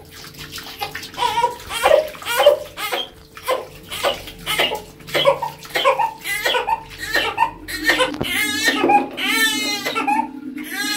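Water poured from a mug splashing over a newborn's back during a bath, with the baby fussing in short bursts and breaking into crying near the end.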